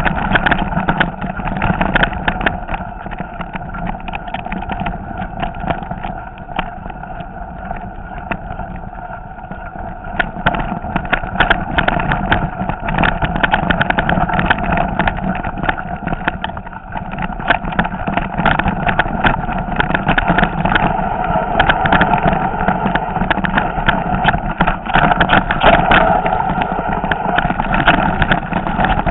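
Mountain bike rolling fast down a rocky, leaf-covered trail: tyres crunching over loose stones, with the bike and its handlebar-mounted camera rattling in dense knocks over a steady rumble. It gets louder in the second half as the ground turns rockier.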